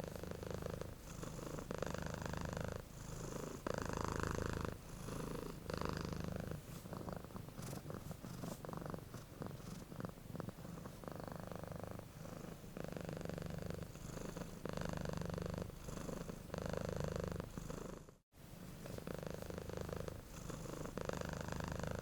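Sleeping cat snoring, a steady rhythmic rasp with each breath, roughly one breath a second. It cuts out briefly about eighteen seconds in.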